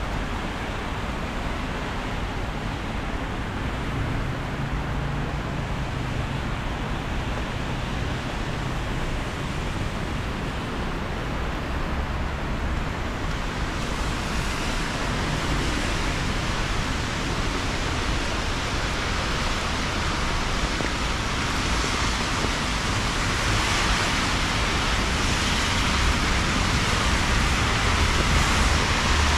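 Steady rain falling on wet pavement, mixed with city traffic hissing past on the wet road under a low rumble of engines. The hiss turns louder and brighter about halfway through and keeps building slowly.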